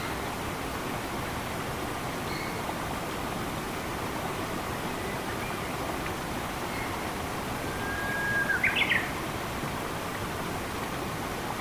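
Steady rushing of flowing water with faint bird chirps here and there. About eight seconds in a bird calls louder: a short held whistle followed by a few quick rising notes.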